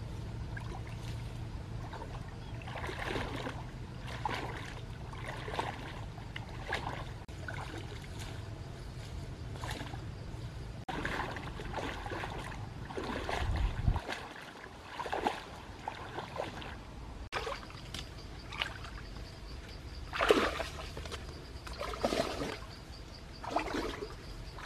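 Irregular splashing and sloshing of a person wading through shallow muddy water and brushing through leafy branches, with louder splashes near the end.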